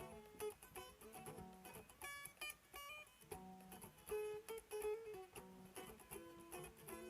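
Background music: acoustic guitar being plucked and strummed, a run of separate notes and chords.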